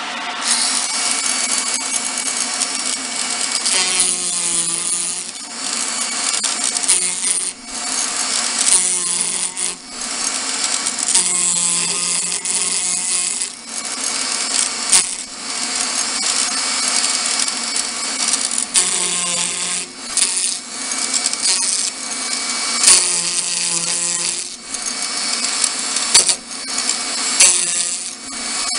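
A hand-held electric rotary tool with a small cutter grinding a spiral groove into a wooden spindle held in a lathe. It gives a steady high motor whine with rough cutting noise, which eases off briefly every few seconds as the cut is shifted along the wood.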